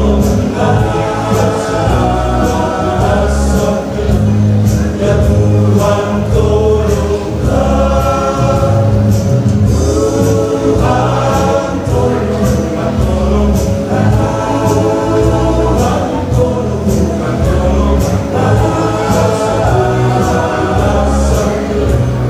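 Church choir singing a gospel hymn, with steady low held notes beneath the voices.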